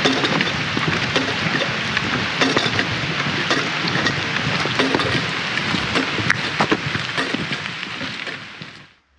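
Heavy rain: a dense, steady hiss with many sharp taps of drops landing close by, fading out near the end.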